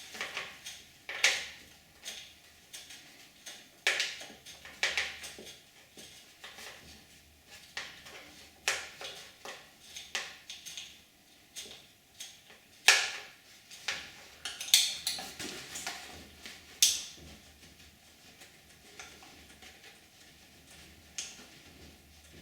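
Hand tools and small metal parts clinking and clicking at irregular intervals, with a few louder clanks, during work on a quad bike's ignition.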